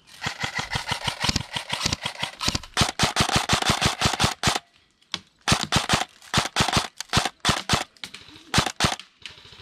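Airsoft guns firing rapid full-auto bursts, a fast string of sharp clicks with a faint motor whine under the first stretch. A steady stream for about four and a half seconds, a brief pause, then several shorter bursts.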